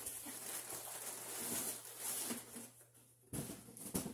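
Packing paper and a plastic bag crinkling and rustling as a box is unpacked by hand, in two stretches with a short lull about three seconds in.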